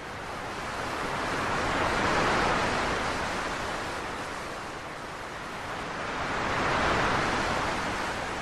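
Sea surf washing onto a beach: a steady rushing noise that swells and fades twice, each swell building and ebbing over a few seconds.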